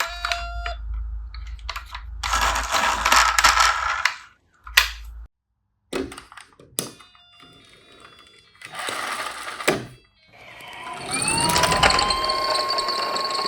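Toy police cars making short plastic rattling and clicking bursts, as when run down a ramp. About eleven seconds in, an electronic toy police siren starts, rising and then holding a steady wail.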